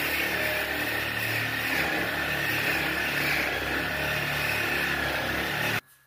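Angle grinder cutting through the steel frame of an old hay rake: a steady, loud grinding whine that cuts off suddenly near the end.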